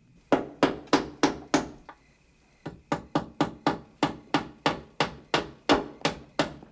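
Hammer driving nails into wooden boards: quick, even strikes, about three to four a second, with a short pause about two seconds in before the hammering resumes.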